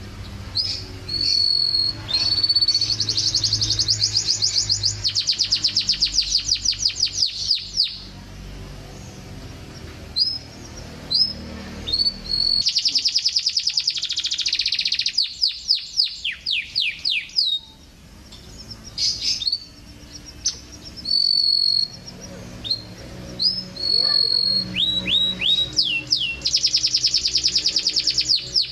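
Domestic canary singing: long phrases of fast, high-pitched trills and rolls, broken by quick runs of downward-sweeping whistled notes, with short pauses between phrases.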